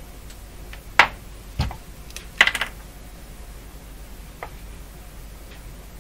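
Small handling clicks and taps from a power plug, a meter test probe and a marker pen being handled: one sharp click about a second in, a duller knock just after it, a quick cluster of clicks around two and a half seconds, and a faint tick later, over a faint low hum.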